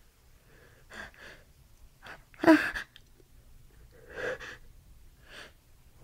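A woman's gasping, catching breaths as a sneeze builds: a few separate intakes, the loudest a sharp voiced gasp about two and a half seconds in.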